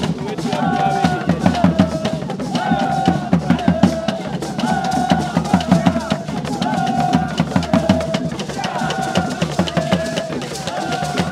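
Lively drumming and percussion with a short two-note melody repeating about every two seconds.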